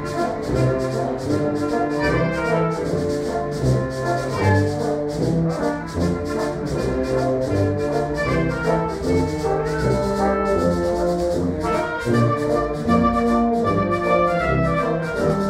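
Wind band with brass playing, while sandpaper blocks of different grits are rubbed together in a steady rhythm as a percussion part, the scratching strokes heard over the band.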